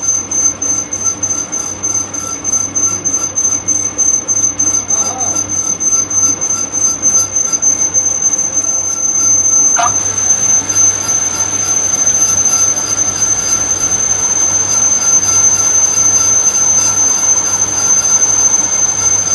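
Lathe running with a steady high-pitched whine and a low hum, its turning tool cutting a spinning cylindrical handle blank. The sound pulses in the first half, and a short squeal comes about halfway through.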